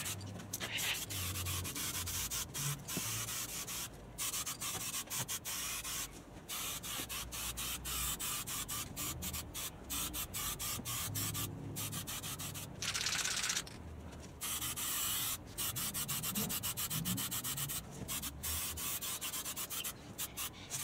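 Dupli-Color High Heat aerosol spray can hissing in many short on-off bursts, with one longer burst about two-thirds of the way through, as a first light coat of satin black goes onto chrome exhaust pipes.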